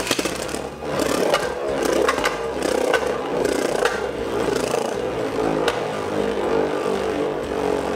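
Beyblade Burst spinning top on a Jaggy (sawtooth-tipped) attack driver spinning across a plastic stadium dish after an angled launch: a steady, rough buzzing whir, with a few sharp clicks as it knocks against the stadium.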